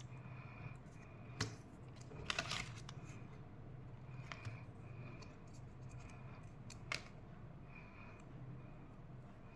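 Sharp plastic clicks and crinkles from handling a Kinder Joy egg and its packaging, a handful of separate sounds with the loudest cluster a little over two seconds in. A low steady hum runs underneath.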